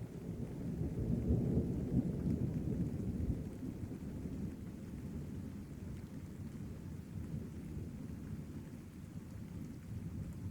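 Rolling thunder over steady rain, the rumble swelling to its loudest between about one and three seconds in and then dying away.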